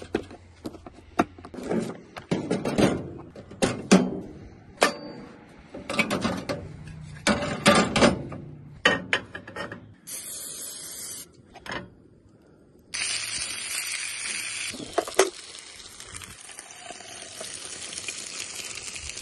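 Cooking sounds: a run of sharp clicks, knocks and clatter of utensils and cookware being handled, then a steady sizzling hiss of food frying in a pan that starts suddenly about two-thirds of the way in.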